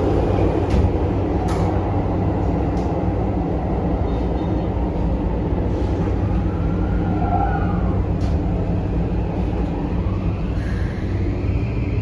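Toei 5500 series electric train running: a steady rumble of wheels on rail, with a few sharp rail-joint clicks. Near the end, a rising whine from its Mitsubishi full-SiC VVVF inverter and induction traction motors comes in.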